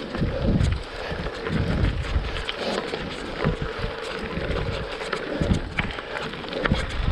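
Gravel bike rolling along a gravel road: tyres crunching over loose gravel, with wind buffeting the microphone in uneven low gusts and scattered sharp clicks and rattles from the bike.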